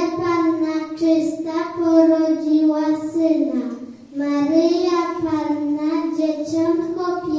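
A young girl singing solo into a microphone, in long held notes, with a short break for breath about four seconds in.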